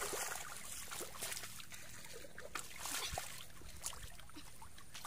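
Shallow muddy runoff water splashing and sloshing around bare feet and hands as someone wades and gropes through it, with irregular splashes over a steady trickle.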